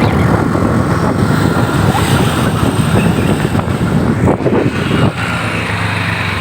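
Road traffic noise from vehicles running on the road, loud and rough. About five seconds in it settles into a steadier low engine hum.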